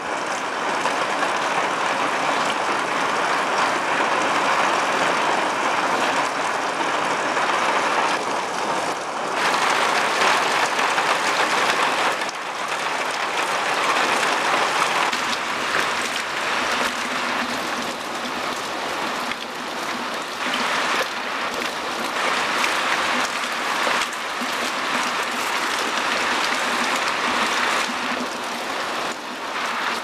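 Rain and hail falling in a steady, dense hiss. The sound changes abruptly a couple of times.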